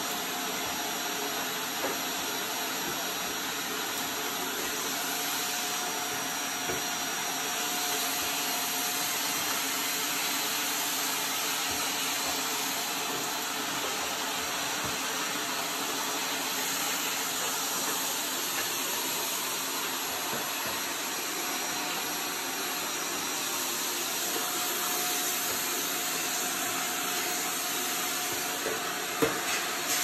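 Shark upright vacuum cleaner running steadily, sucking through its hose and a slim attachment pushed under a refrigerator. There are a couple of short knocks near the end.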